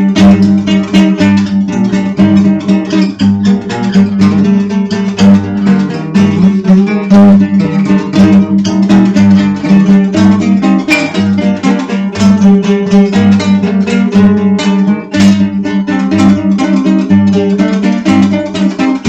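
Dark folk music: plucked acoustic guitar over a steady low drone, with a low bass note pulsing at an even pace.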